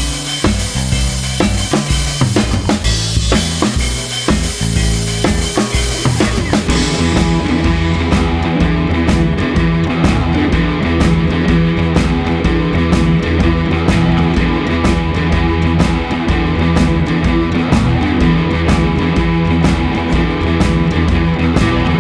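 Background music with a steady drum-kit beat; about seven seconds in, the mix changes to a denser, sustained sound under a regular beat.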